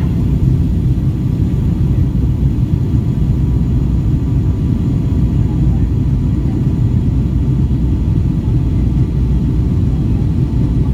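Cabin noise inside a Boeing 757-200 airliner: the steady low rumble of the engines and airflow, unchanging throughout, with a faint whine above it.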